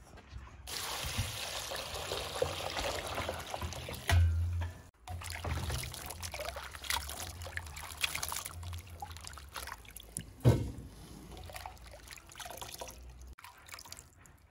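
Water pouring from an enamel bucket onto diced quince in a large enamel basin, steady for a few seconds. Then hands swishing the quince pieces in the water to wash them, with irregular splashing and one louder splash.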